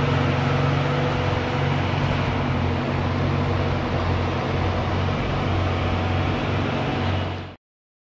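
Ferrari Testarossa's flat-12 engine idling steadily, a low even hum that cuts off suddenly about seven and a half seconds in.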